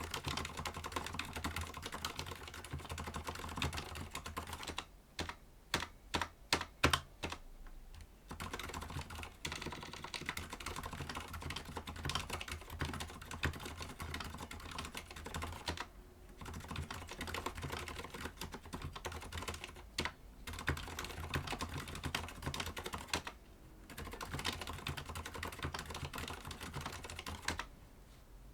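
Rapid, continuous typing on a Thinkway Toche mechanical keyboard fitted with Cherry MX Silent Red (low-noise linear) switches. Around five to eight seconds in, the flow breaks into a handful of separate, louder keystrokes, and the typing stops shortly before the end.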